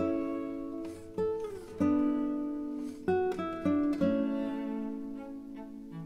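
Background music: a plucked acoustic guitar plays chords that ring and fade, a new chord struck every second or so, with a couple of sliding notes.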